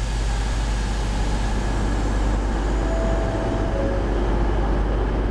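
Locomotive standing at a station platform with its equipment running: a steady low hum under the noise of the trainshed. A brief faint tone sounds about three seconds in.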